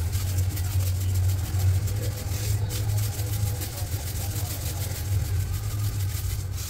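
Pot of water at a rolling boil on the stove: a steady low rumble with a dense crackle of bubbling.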